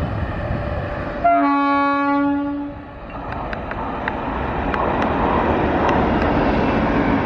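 Indian Railways electric locomotive sounding one horn blast about a second in, lasting about a second and a half, then the train rushing past, getting louder, with scattered clacks of wheels over rail joints.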